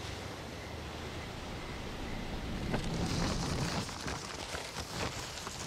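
Steady low rumble of a car interior, joined about three seconds in by paper burger wrappers rustling and crinkling, with many small crackles.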